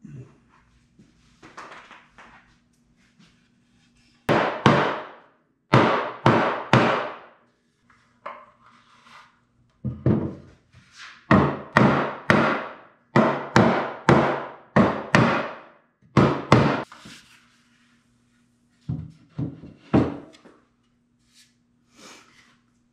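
Mallet blows knocking a cherry wall shelf's shelves home into their stopped dado joints during assembly: sharp knocks in runs of two to six, with pauses between runs. Fainter wood-handling knocks come before the first blows.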